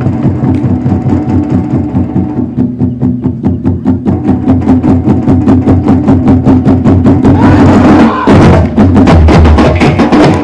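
Live percussion music for a Chhau martial dance: rapid, even drum strokes over a steady low pitched tone. It gets louder and fuller about eight seconds in.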